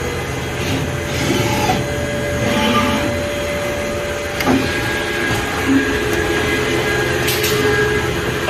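Takisawa MAC-1VE CNC vertical machining center running, a steady mechanical whine whose pitch shifts partway through, with a few sharp clunks in the second half.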